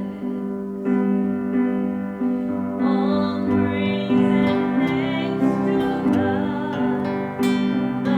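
Worship music on acoustic guitar: held chords changing every second or so, with a wavering melody line above them from about three seconds in.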